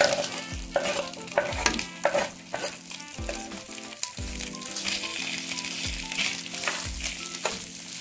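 Diced smoked pork chop and freshly added chopped onion sizzling as they fry in hot oil in a glazed clay cazuela, stirred with a metal spoon that scrapes and knocks against the pot now and then.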